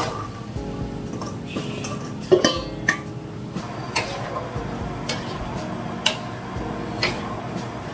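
Diced green papaya tipped from a stainless steel bowl into a non-stick frying pan, then stirred with a wooden spoon: irregular knocks and scrapes of bowl and spoon against the pan, the sharpest a little over two seconds in, over a faint steady hum.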